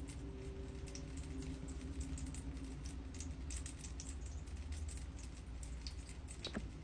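Rain cloud humidifier dripping: water drops fall from the cloud into the water basin below in an irregular patter of small drips, like light rain, over a low steady hum. Near the end one louder drop lands with a falling 'plink'.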